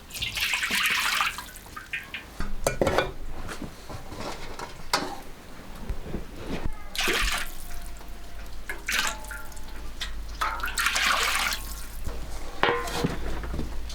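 Water splashing and pouring in three bursts as something is washed by hand, with clicks and knocks in between.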